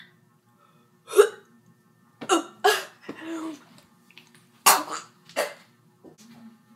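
A girl gagging and retching at the taste of food, in a series of about six short, sharp heaves.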